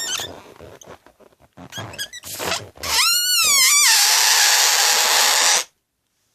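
Air let out of a small rubber balloon through its stretched neck: rustling as it is handled, then about a second of wavering high-pitched squeal, then a loud rushing hiss of escaping air that cuts off suddenly as the balloon empties.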